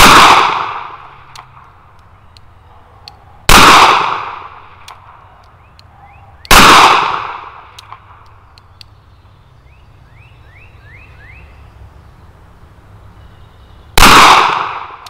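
Four .45 ACP shots fired double action from a Smith & Wesson Governor revolver, each a sharp crack that rings off over about a second. They come at the start, about 3.5 and 6.5 seconds in, and after a long pause near the end.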